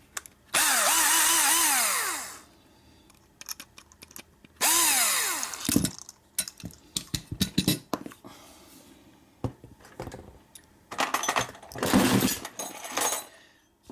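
A small power drill runs in two short bursts, the motor whine rising and falling in pitch. Scattered clicks and rattles of small metal lock parts being handled follow.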